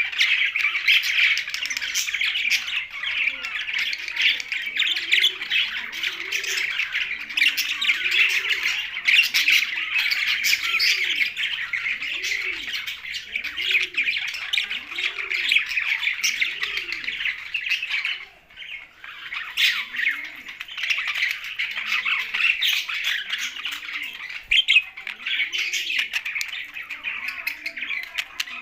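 Budgerigars and parrots chattering and squawking together in a dense, unbroken stream, with a lower call repeating a little more often than once a second underneath. The chatter stops for about a second about two-thirds of the way through, then resumes.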